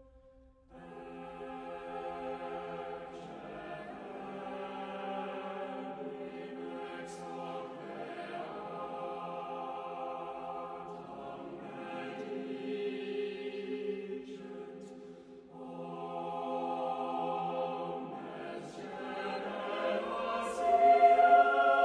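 Slow choral background music with long held notes, starting about a second in and growing louder near the end.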